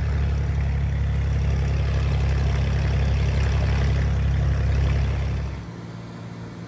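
Cessna light aircraft's single piston engine running steadily, heard from inside the cabin as a deep, even hum. About two-thirds of the way through it falls away to a quieter, steady noise.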